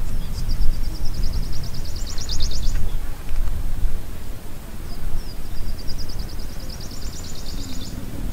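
A songbird singing two phrases, each a rapid trill of high notes about three seconds long that grows louder toward its end, over a steady low rumble.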